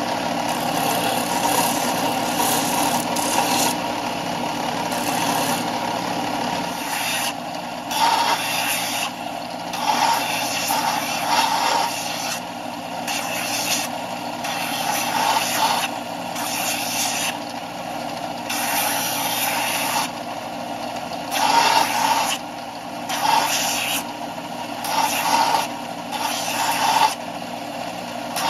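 Bench belt sander running steadily, with a wooden wok handle pressed against the moving belt in repeated passes; from about seven seconds in, each pass adds a louder scratchy sanding noise over the motor's hum.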